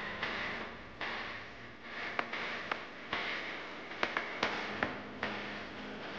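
A kitchen knife cutting apple on a wooden bamboo cutting board: crisp slicing strokes through the fruit, and several sharp taps of the blade on the board, two a little after two seconds and a quick run of four around four to five seconds in.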